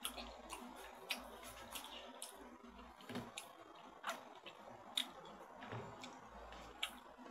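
Faint, scattered wet clicks and squishes of a metal spoon digging into watermelon flesh, then a few sharper taps as the hollowed watermelon half is handled and set down on the counter.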